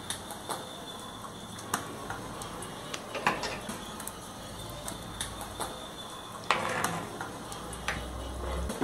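Scattered light knocks and clinks of kitchen utensils handled at a clay cooking pot, with one longer rustling sound about six and a half seconds in.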